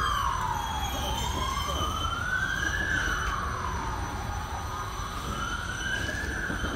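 A siren wailing, its pitch rising and falling slowly, one full cycle about every three and a half seconds, over a steady low rumble.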